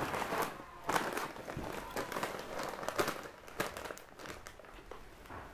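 Someone eating instant ramen noodles with a fork from a glass bowl: irregular soft clicks of the fork in the bowl, rustling and slurping of noodles.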